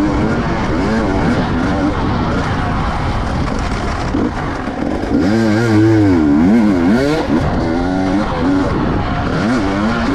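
Enduro motorcycle engine revving, its pitch sweeping up and down over and over as the throttle is worked, loudest about five to seven seconds in.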